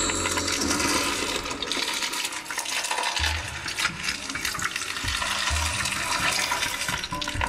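Sound effects from the projection show's loudspeakers: a dense, rushing noise, with two low thuds about three and five and a half seconds in.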